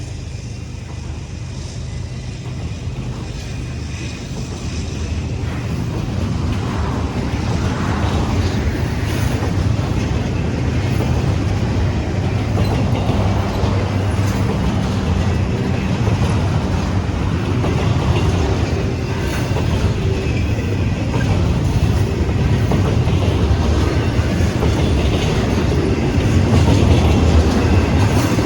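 CSX freight train passing, its GE diesel locomotives running and its wheels clattering over the rails, growing steadily louder.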